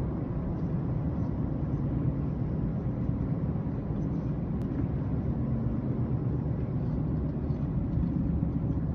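Steady low rumble of vehicle engine and tyre noise, heard from inside a moving car.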